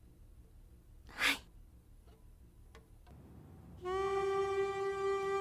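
Near quiet with one short breathy whoosh about a second in, then background score enters near the end as a single held wind-instrument note.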